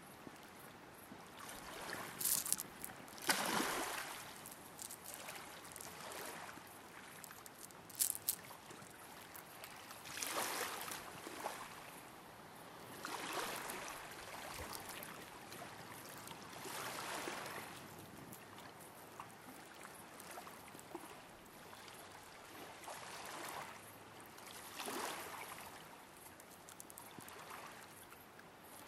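Small waves lapping on a stony shore, washing in and fading every few seconds, with a few short sharp clatters in the first eight seconds.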